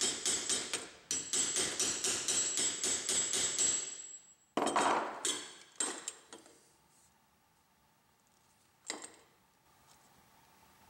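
Rapid hammer blows on a screwdriver held against the aluminium suitcase handle tube clamped in a vise, about four or five strikes a second with a high metallic ring. They are knocking out pins that are hard to get out. After about four seconds come a few slower blows, then one last one near the end.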